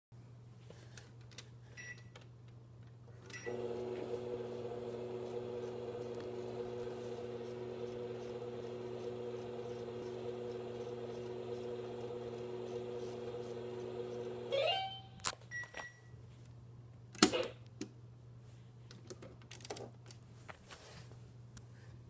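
Toy microwave's electronic running sound: a short beep, then a steady hum with several fixed tones for about eleven seconds, ending in a quick rising tone. Two sharp clicks follow, with a brief beep between them.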